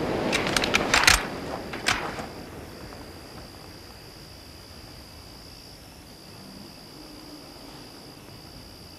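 A few sharp clicks and knocks in the first two seconds, then a steady, high-pitched insect drone that breaks off briefly a few times.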